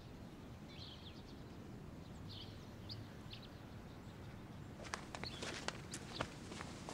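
Faint outdoor background with a few short bird chirps. From about five seconds in comes a quick run of light taps and rustles: footsteps and bundles being handled.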